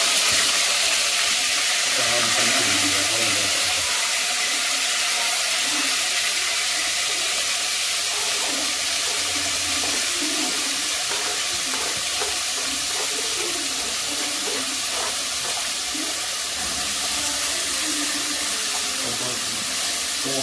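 Chopped onion, tomato, sweet pepper and scallion sizzling in hot oil in a pot, a loud steady hiss.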